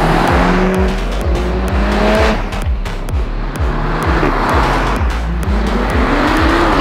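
Cars pulling away and accelerating past one after another, engines revving up in rising sweeps three times, over electronic dance music with a fast steady beat.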